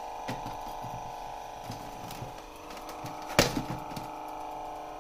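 Artin 1:10 Nissan 350Z RC drift car switched on and running in reverse, giving a steady whining tone. Small knocks come from hands handling the plastic body, with one sharper click about three and a half seconds in.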